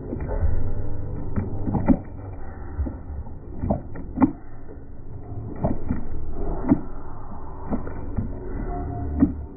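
Skateboard wheels rolling and carving on a concrete bowl, a steady low rumble broken by sharp knocks about every two seconds.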